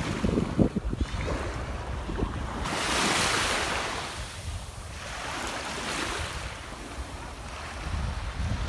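Sea waves washing onto the shore, the surf swelling about every three seconds, the biggest wash about three seconds in. Wind buffets the microphone with a low rumble at the start and again near the end.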